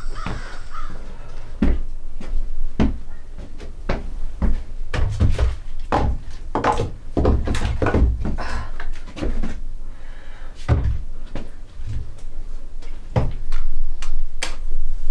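Irregular knocks, clatters and thuds of things being handled, about one or two a second, over a low rumble and getting a little louder near the end.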